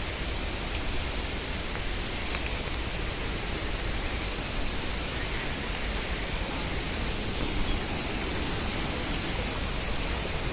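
Steady rushing of flowing water, with a low rumble underneath and a few faint, short high-pitched ticks scattered through it.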